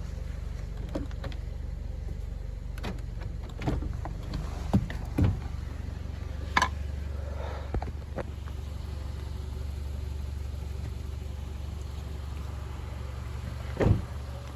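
A metal farm gate being opened: scattered clanks and knocks, a few seconds apart, over a vehicle engine idling steadily.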